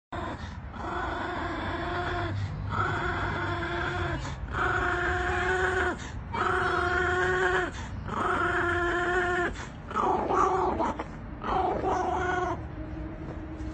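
Chihuahua growling in a string of about seven long, high-pitched snarls, each a second or more, with short breath pauses between; the last few are shorter and more broken. They are warning growls at a much larger dog over a stick.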